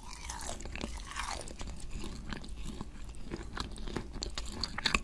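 Chewing a bite of crispy fried chicken drumstick, with many sharp crackling crunches from the fried coating.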